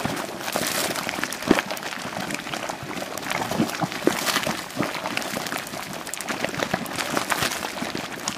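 Geothermal mud pool boiling: a steady bubbling with many small pops as mud bubbles burst, and one louder pop about a second and a half in.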